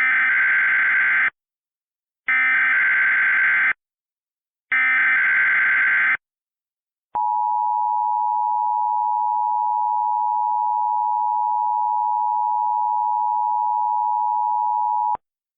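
Emergency Alert System activation: three bursts of the SAME digital header tones, each about a second and a half long, followed by the steady two-tone EAS attention signal held for about eight seconds before it cuts off. The sequence heralds an extreme wind warning for Hurricane Ida.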